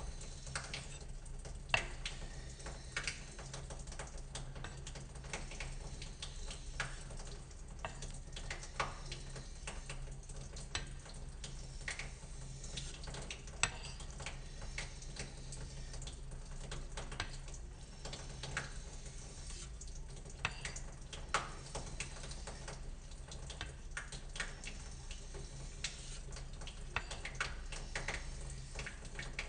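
Greaves wedge straight razor being honed on a wet 1.5K stone in rolling, heel-leading strokes. The blade scrapes softly on the stone, with scattered light clicks as the spine turns over on the stone, over a steady low hum.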